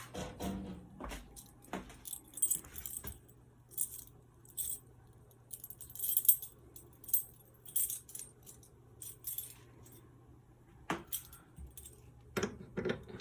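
A bunch of keys jingling in irregular bursts as they are picked up and carried, over a faint steady hum, with a single sharp click about eleven seconds in. These are the keys for resetting the fire alarm pull stations.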